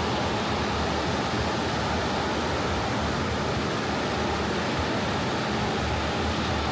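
Sea surf washing on a beach: a steady, even hiss with no single wave breaking out from it.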